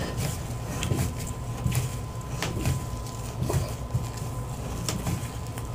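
Bathtub spout being screwed onto its threaded pipe by hand through a cloth: irregular small clicks and scrapes of handling and turning, over a steady low hum.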